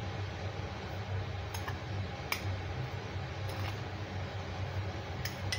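A steel spoon clinks lightly against ceramic bowls a few times as powdered sugar is scooped and added, over a steady low hum.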